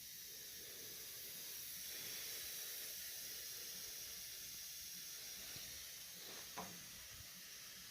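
Faint, steady hiss with no clear source, and one short click about six and a half seconds in.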